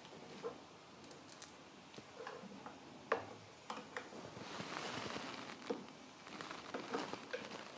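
Hand screwdriver driving a screw and washer into a plastic grass box frame: faint scattered clicks and light handling noise, with one sharper click about three seconds in.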